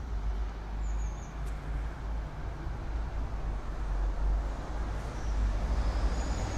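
Street ambience: a steady, fluctuating low rumble of traffic noise, with a few faint high chirps about a second in and near the end.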